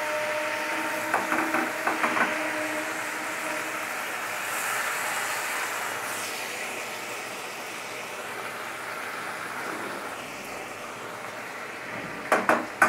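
Fish curry sizzling and simmering in a metal kadai on a gas burner, a steady hiss, with a few light clicks of the spatula on the pan about a second in and again near the end.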